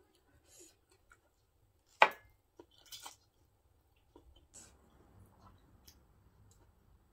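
Close-up eating sounds: noodles slurped and chewed, with one sharp knock about two seconds in, the loudest sound, and soft chewing toward the end.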